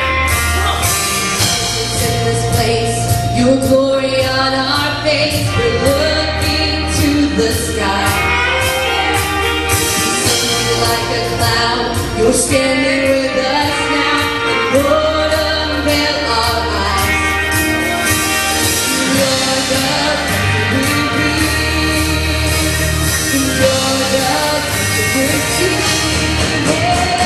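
Church choir of men and women singing a contemporary worship song, accompanied by a live band with bass and a steady drum beat.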